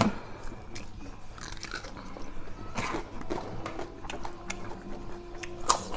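A crisp bite into a raw cabe gendot chili right at the start, then close-miked chewing with small crunches.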